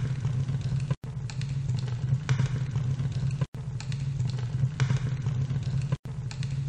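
A steady low rumble with a noisy haze above it, broken by three brief silences about a second, three and a half seconds and six seconds in.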